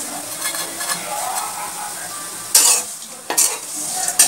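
Flat metal spatula stirring and scraping torn roti pieces frying in ghee in a metal kadai, over a light steady sizzle. Three loud scrapes of the spatula against the pan come in the second half.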